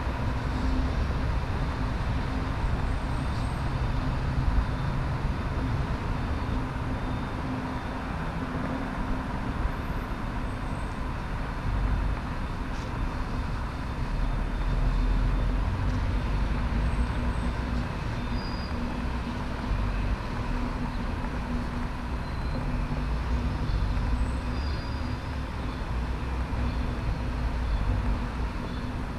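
Steady low rumble of city road traffic, with a few faint short high chirps now and then.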